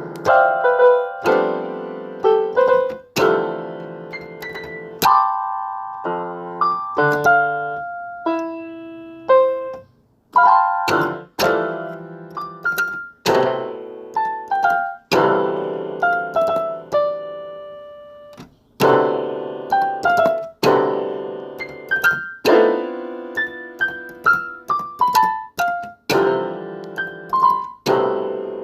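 Piano music: struck chords and melody notes, each dying away after it is played, with two brief pauses.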